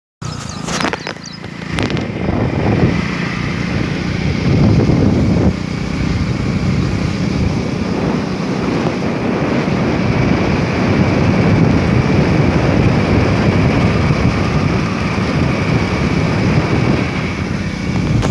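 Wind rushing and buffeting over the microphone of a moving motorcycle, a loud steady rumble with the bike running beneath it.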